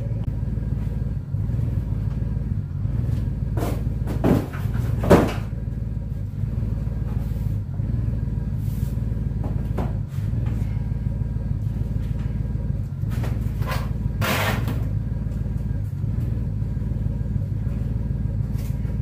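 A steady low rumble, with several knocks and thumps as long cardboard boxes of shop lights are lifted and set down on a concrete floor; the loudest thump comes about five seconds in.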